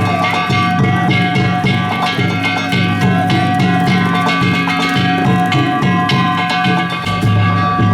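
Danjiri festival music: a taiko drum beating fast and steadily, with metal gongs ringing over it.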